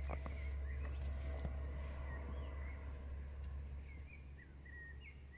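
Small birds singing, with short, quick, repeated high chirps and a few short whistled notes. Under them runs a steady low rumble, with a couple of faint clicks in the first second and a half.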